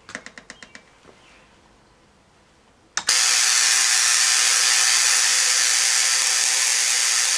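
A few quick clicks near the start. About three seconds in, the Tesla coil switches on with a loud, steady hissing buzz from its spark streamers at the top load, a low hum running underneath.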